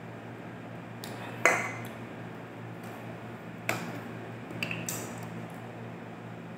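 A drink can set down on a table with a sharp, ringing clink, then another knock and light crackling clicks as a plastic water bottle is picked up. A steady low hum runs underneath.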